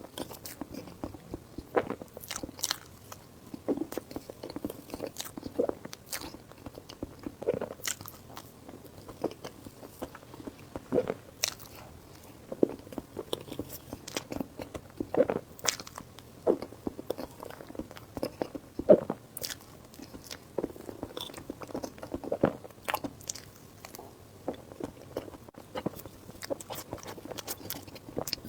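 Close-miked eating: irregular crunchy bites and chewing, with many small crackles and clicks and one louder bite about two-thirds of the way through.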